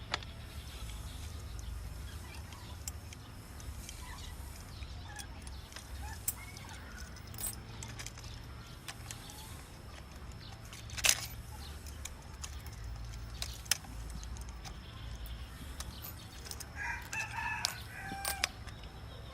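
A rooster crows once near the end, over scattered sharp clicks and knocks, the loudest of them about halfway through.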